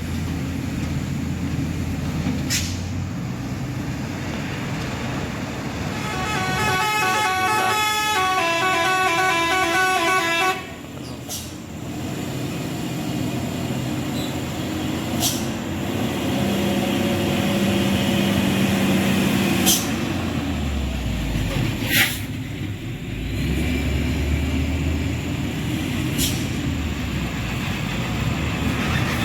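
Heavy truck engines labouring uphill, with a multi-tone telolet horn playing a stepping melody for about four seconds starting roughly six seconds in. Several sharp clicks come through the engine noise.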